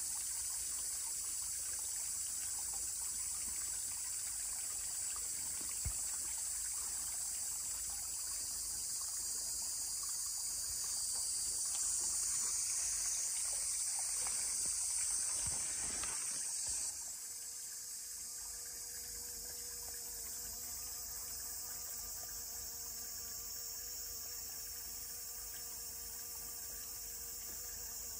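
A chorus of summer cicadas droning steadily and high-pitched, with water trickling in the first half. After a sudden drop in level about two-thirds of the way in, the cicadas go on more quietly, joined by the faint, steady hum of a bee buzzing close by.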